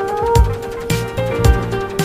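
Background music: a melody over a steady drum beat, with a kick drum about twice a second.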